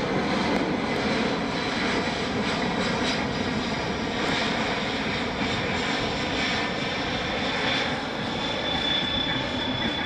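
Boeing C-17 Globemaster III's four Pratt & Whitney F117 turbofans during a slow low-level flypast: steady jet engine noise with a thin high whine that grows stronger near the end.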